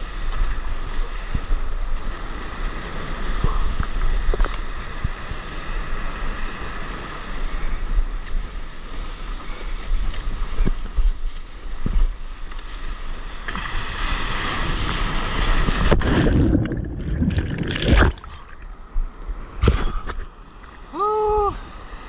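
Ocean surf and water sloshing and splashing against a surfboard, heard from an action camera mounted on the board, with wind on the microphone. The splashing grows heavier about two-thirds of the way through as the board runs into whitewater, and a short pitched call sounds shortly before the end.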